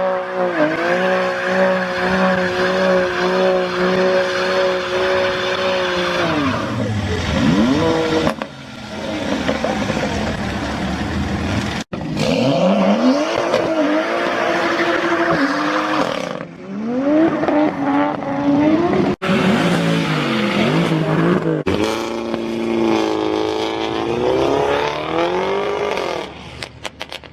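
Performance car engines revving hard through loud exhausts. One is held at steady high revs for about six seconds before dropping off, then a series of rising and falling rev blips follows, broken by a few sudden cuts.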